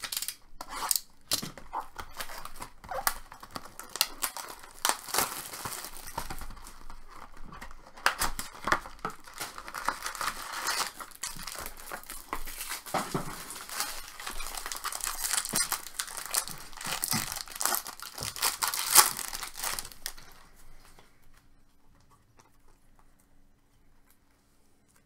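Foil trading-card packs from a vending box of chrome baseball cards being torn open, with the wrappers crinkling in a dense run of crackles and sharp clicks. It stops about twenty seconds in, leaving only a faint steady hum.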